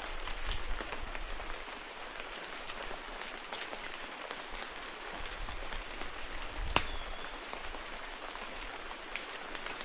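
Rain falling on cloud-forest vegetation: a steady hiss with many separate drop hits, and one louder drop about seven seconds in.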